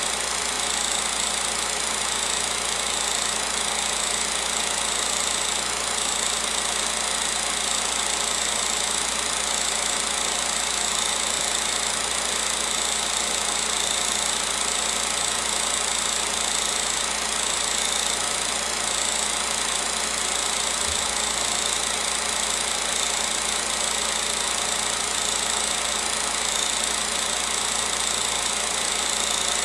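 16mm film projector running: a steady mechanical whirr and clatter of the motor and film transport, with a constant high whine.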